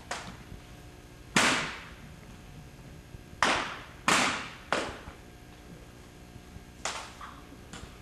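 Sharp, echoing cracks of 1903 Springfield rifles being slapped and struck during a precision rifle drill, about six in all at irregular spacing, the loudest three spread through the middle of the stretch.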